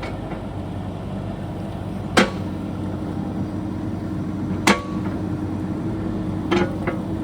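Bobcat E26 compact excavator's diesel engine running steadily, with sharp metallic clanks from the machine, four in all, the last two close together.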